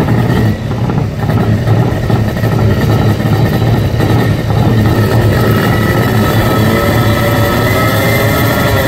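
Racing motorcycle engine running loudly and steadily.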